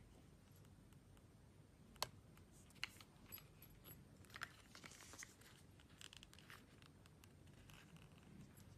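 Faint handling noise of a sandal and its clear plastic packaging: a sharp click about two seconds in, then scattered light crinkling and rustling of plastic as the sandal is turned over in the hands.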